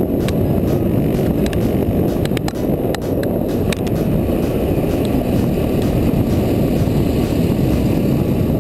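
Single-cylinder supermoto motorcycle ridden at speed on the road, recorded from the rider's helmet: a steady, loud engine-and-road rush, with a few sharp clicks around the middle.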